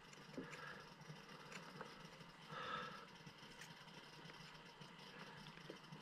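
Near silence: faint room tone with a few soft ticks and one faint soft sound a little before the middle.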